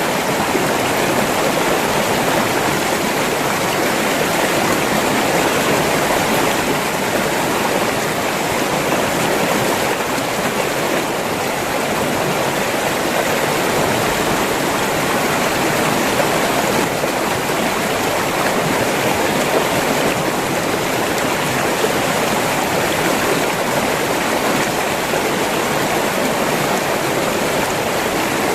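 River water flowing steadily over rocks, a continuous rushing and burbling.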